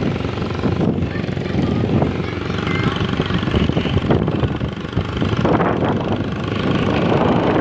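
Steady engine and road noise of a moving vehicle driving along a street.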